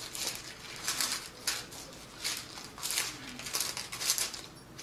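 A small white paper item crinkled and rustled in the hands: about eight short crackling rustles, one after another.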